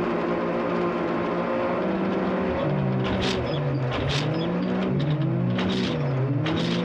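Turbocharged side-by-side UTV engine running hard, its pitch dropping and climbing again several times as the machine slows and accelerates. Short sharp crackles or rattles sound over it four times.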